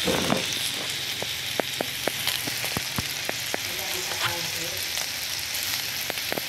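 Goat satay skewers sizzling on a round grill pan over a gas stove: a steady hiss with frequent sharp crackles and pops.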